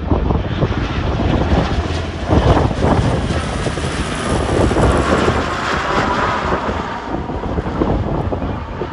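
Lockheed CP-140 Aurora's four Allison T56 turboprop engines and propellers during a low fly-by. It is a loud, dense rumble with a high whine that peaks about six seconds in and then eases as the aircraft passes and moves away.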